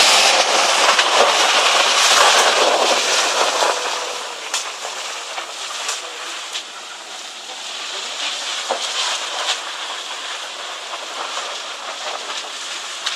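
Vehicle running under load while towing a stuck car out, a noisy rumble of engine and tyres working over forest ground, louder for about the first four seconds and then easing, with scattered sharp cracks.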